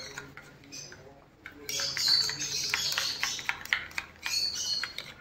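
Small birds chirping in quick, high, repeated notes, in two spells: one about two seconds in and a shorter one about four seconds in.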